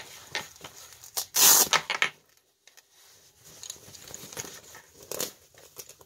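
Rustling and handling of a dog harness's fabric and webbing straps, with one loud ripping tear about a second and a half in, then a quiet moment.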